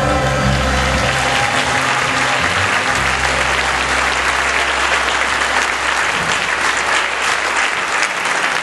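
Audience applauding at the end of a gospel choir song, while the last low chord from the band holds and dies away over the first few seconds.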